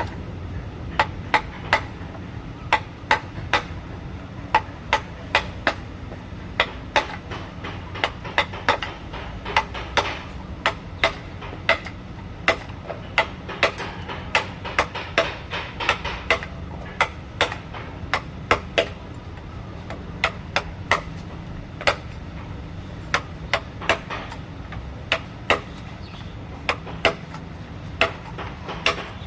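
Mallet striking a carving chisel into wood in a steady run of sharp knocks, about two a second, over a low steady hum.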